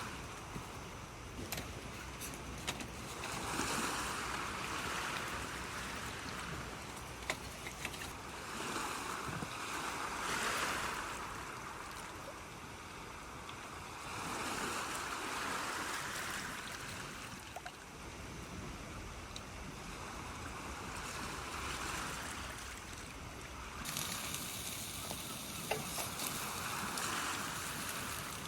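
Wind and rain in a storm, the wind swelling in gusts and dying down every five or six seconds, with a few scattered sharp ticks.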